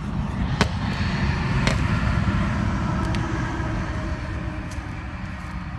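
Road traffic going past: a vehicle's rumble swells over the first couple of seconds and fades. A few light sharp clicks sound over it.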